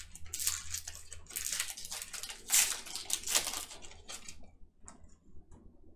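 Trading cards being handled, a run of rustling, scraping strokes as cards slide against each other and plastic, loudest about two and a half and three and a half seconds in, then a few faint clicks.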